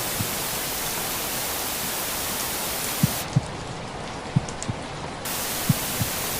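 Steady white-noise hiss with a slow recorded heartbeat laid over it, each beat a soft low double thump (lub-dub). One beat falls right at the start; the beats pause, then return about three seconds in at roughly one every 1.3 seconds. For about two seconds in the middle the hiss turns duller and slightly quieter.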